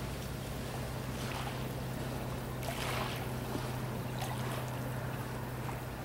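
Small waves lapping softly at the lake shore, a few gentle washes over a steady low hum.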